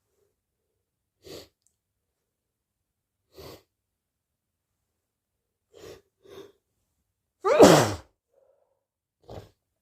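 A person sneezing once, loudly, with a falling pitch, after a run of short, sharp breaths spaced a second or two apart.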